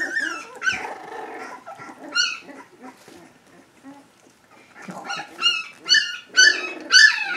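Three-week-old Standard Schnauzer puppies yipping and squealing as they play. After a brief lull, a run of about five high yips comes in the last two seconds, the loudest near the end.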